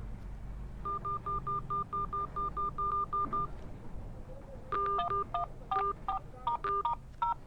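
Samsung A12 phone keypad dial tones as a number is tapped in for an outgoing call. First comes a quick run of about a dozen identical short beeps, several a second. A second run of beeps, changing in pitch from key to key, starts just before the five-second mark.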